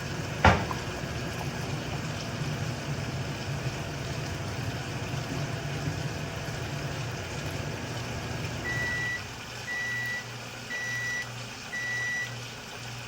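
A steady low hum with a knock about half a second in, then a kitchen appliance's timer beeps four times, about a second apart, as a cooking cycle ends.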